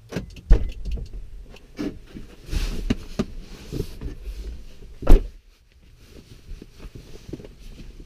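Irregular clicks, knocks and rustling inside a car cabin, with two louder thumps, one about half a second in and one about five seconds in.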